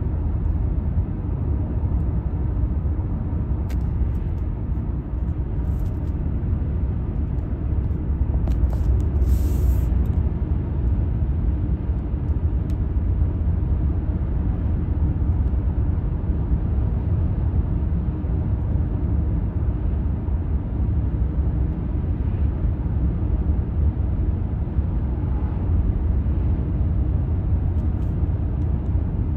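Steady low rumble of a car on the move, heard from inside the cabin: tyre and engine noise on an open road.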